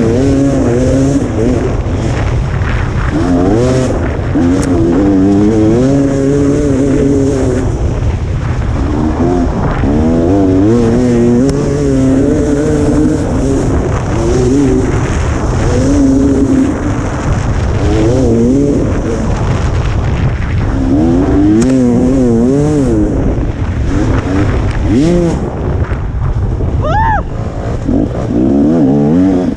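Two-stroke KTM 300 XC dirt bike engine revving hard and constantly, its pitch rising and falling every second or two with the throttle, over a steady rush of wind and tyre noise.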